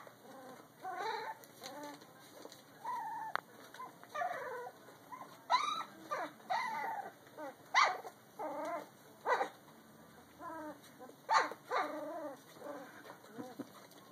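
A litter of young puppies play-fighting, giving short high-pitched yips and squeals one after another, about one a second, with a few louder ones standing out.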